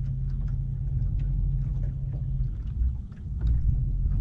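Low steady rumble on a small fishing boat, dipping briefly about three seconds in.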